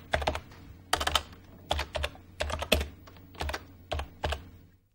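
Computer keyboard keys clicking as a short message is typed, in irregular runs of keystrokes with brief pauses, stopping shortly before the end.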